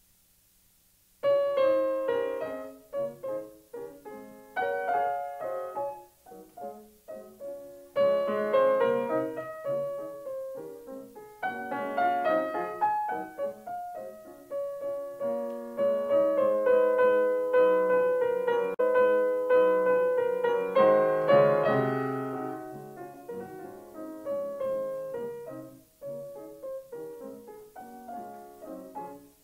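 Solo piano music: a slow piece of single notes and chords that ring and fade. It starts about a second in, after a moment of silence.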